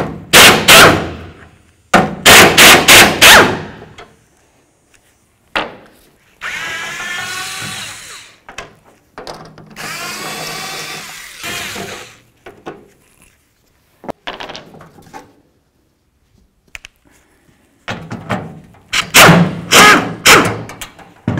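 Pneumatic impact wrench backing out tailgate bolts and screws: several loud bursts of rapid hammering, two longer and quieter stretches of the tool running in the middle, then more hammering bursts near the end.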